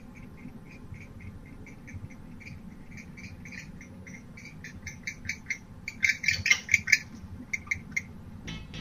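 Barn owl giving rapid, repeated short chittering calls, three or four a second, rising to a louder, denser flurry about six seconds in.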